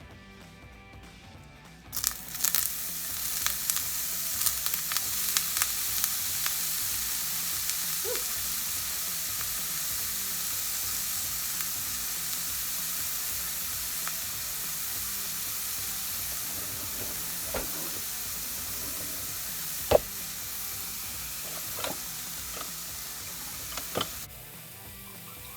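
Food going into a hot skillet about two seconds in, setting off a loud, steady frying sizzle with scattered crackles and pops; the sizzle drops away suddenly near the end.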